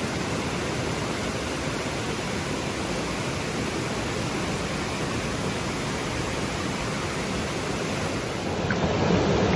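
Mountain stream water rushing steadily, growing a little louder near the end.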